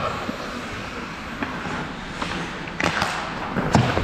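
Ice hockey skates scraping and carving across the ice, with a few sharp clacks of stick and puck in the second half.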